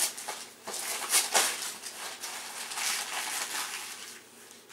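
Wrapping paper rustling and tearing as a gift is unwrapped, in irregular crinkly bursts that die down near the end.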